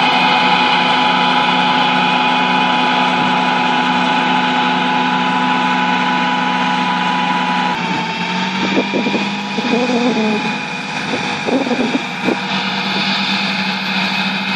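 John Deere tractor's engine running at a steady pitch under load as it pulls a wide harrow. About eight seconds in the sound changes abruptly to a fainter engine, with a few brief louder noises over it.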